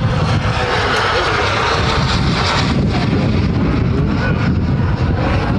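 Model jet's turbine engine running: a loud rushing hiss that swells and fades with a faint high whine over it, against a low wind rumble on the microphone.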